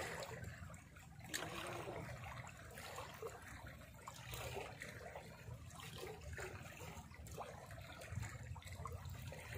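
Faint sea water lapping and trickling among shoreline rocks, over a steady low rumble.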